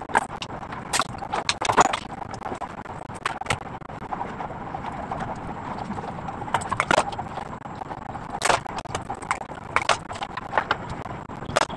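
Scattered light clicks and knocks as cut gerbera stems are handled and pushed into floral foam in a metal pot at a worktable, over a steady background hum.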